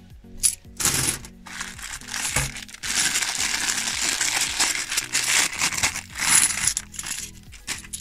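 A handful of bimetallic £2 coins clinking and jingling as they are handled, with a few single clicks in the first second and a longer run of dense jingling in the middle, over background music.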